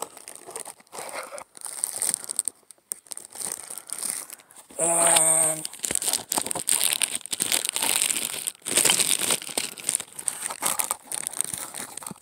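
Plastic wrapping and bubble wrap crinkling and rustling as items are dug out of a packed cardboard box, with a brief steady buzzing tone about five seconds in.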